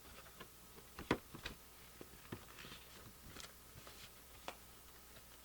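Scattered light clicks and taps of small objects being handled on a table, the loudest a pair about a second in.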